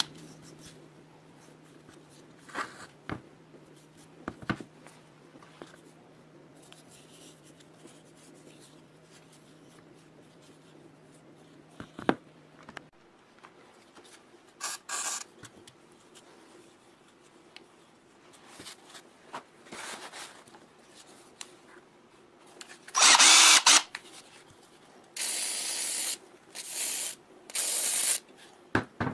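Cordless drill spinning a ball-type flex hone in the compressor crankcase's cylinder bores, honing them in short bursts of a second or less, three close together near the end. Before that there are quiet handling clicks and knocks, and a faint low hum that stops about halfway.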